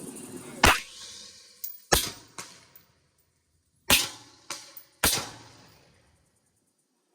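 Gunshots from a freshly built AR pistol: four loud, sharp shots spread over about five seconds, each trailing off in a short echo, with two fainter cracks in between.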